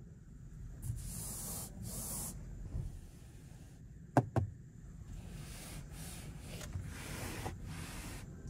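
A hand brushing and rubbing over a car's interior door panel: the grained soft-touch upper panel, the gloss-black trim and the stitched armrest. There are two sharp taps just after four seconds in.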